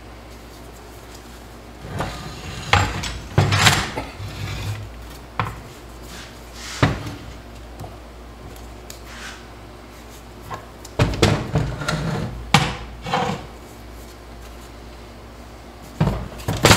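Cast-aluminium TH350 transmission case clunking and scraping against a steel workbench as it is turned over and shifted by hand. The knocks come in irregular clusters: a few seconds in, once near the middle, again later, and near the end.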